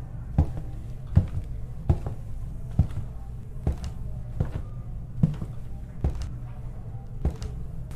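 Slow footsteps of boot heels on a wooden floor, a little over one step a second, each a sharp knock with a short room echo, over a steady low hum.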